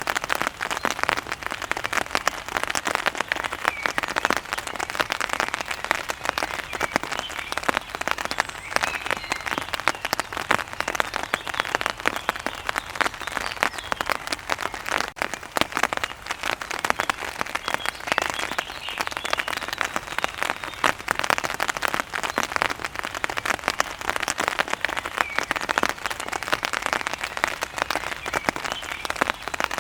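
Rain pattering on an umbrella canopy: a dense, steady spatter of many small drop impacts.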